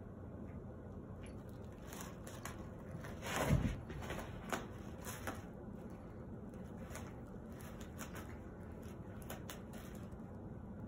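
Plastic bag of socks crinkling and rustling in scattered bursts as a cat bites and kicks at it, with one louder, fuller rustle about three and a half seconds in.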